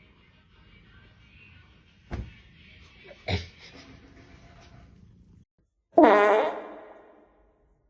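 Two thumps, then about six seconds in a loud buzzy sound with a wavering pitch that lasts about a second and fades.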